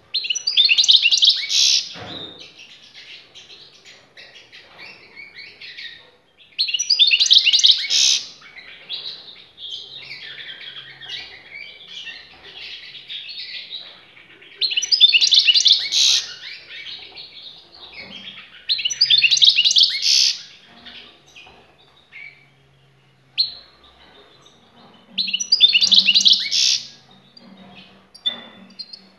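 European goldfinch singing: five loud, bright twittering phrases of about a second and a half each, spaced several seconds apart, with softer twittering between them.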